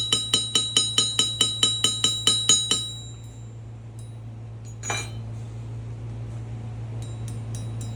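Rapid ringing metallic strikes, about five a second, each with a bright bell-like tone, stopping about three seconds in. A single ringing strike follows near five seconds, over a steady low hum.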